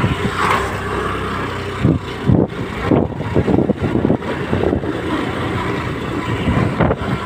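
A road vehicle running on the move: a steady rumble with irregular short buffeting thumps throughout.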